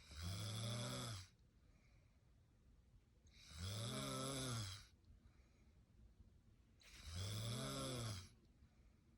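A woman snoring in her sleep: three buzzing snores about three and a half seconds apart, each lasting about a second, its pitch rising and then falling.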